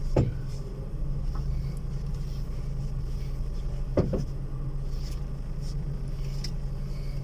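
Volkswagen Fox suspension giving a light knock (a "golpecito") while the car turns and drives: two sharp knocks, just after the start and about four seconds in, over a steady low running hum. The knock later stops once loose bolts are tightened.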